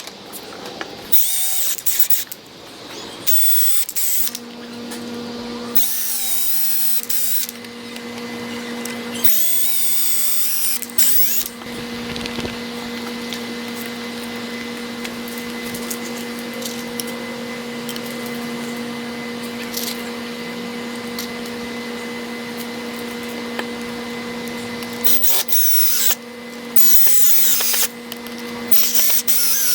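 Power drill running in repeated short bursts of a second or two each, its pitch wavering under the trigger, over a steady low hum.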